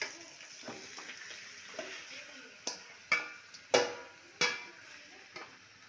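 A metal spatula stirring chicken pieces in a pan, scraping the pan and clanking against it. The clanks ring, with four sharp ones in the second half, over a steady faint hiss.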